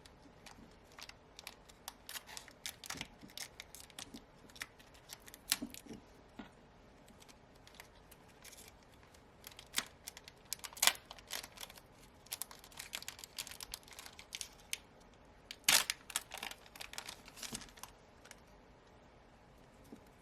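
Trading card booster pack wrappers crinkling and tearing open, and cards being handled: an uneven run of sharp crackles and clicks, with louder tears about halfway through and again about three-quarters through.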